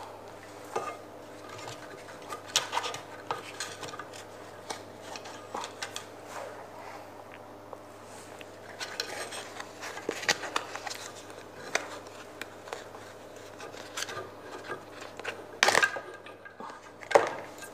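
Scattered clicks, taps and rustling as an LED street light's driver circuit board is handled in its black insulating sleeve inside the light's housing and pulled out, with two louder knocks near the end.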